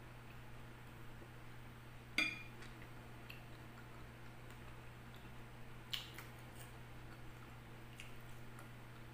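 A metal fork clinks against a glass bowl twice, sharply about two seconds in and again near six seconds, each with a short ring, with a few faint ticks between over a steady low hum.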